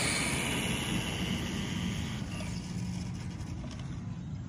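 Radio-controlled drag car running down an asphalt strip, its motor and tyre noise loudest at first and fading over the first couple of seconds as it gets farther away. A low, steady rumble runs underneath.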